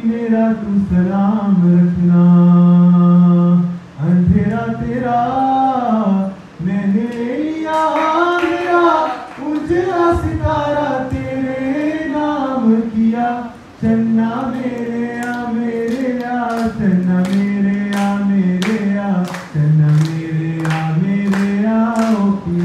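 A man singing unaccompanied into a microphone, long held notes that bend and waver in pitch. About two-thirds of the way in, listeners start clapping along in a steady beat, about two claps a second.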